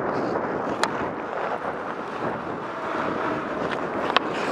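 Steady rush of wind and ice-skate blades scraping the ice, heard from a skating hockey player's helmet camera, with two sharp clacks of hockey stick and puck, one about a second in and one near the end.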